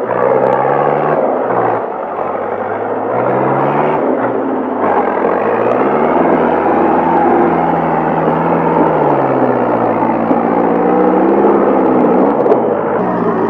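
Tractor engine working hard while driving through deep mud, its pitch rising and falling again and again as the revs change.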